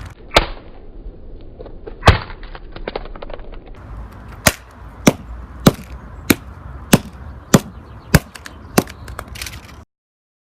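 Hammer blows smashing a Samsung Galaxy S3 phone: a couple of scattered hits, the loudest about two seconds in, then a steady run of eight strikes a little over half a second apart. The sound then cuts off abruptly near the end.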